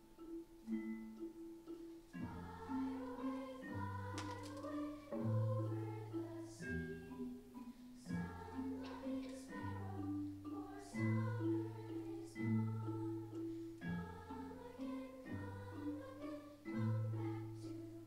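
Students' original performance music: tuned mallet percussion playing a repeating pattern of short notes, joined about two seconds in by low sustained bass notes and a wavering higher melody.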